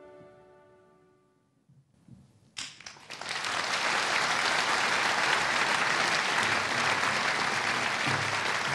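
The last held notes of slow music fade away, and after a brief hush an audience breaks into applause about two and a half seconds in, building quickly to steady clapping.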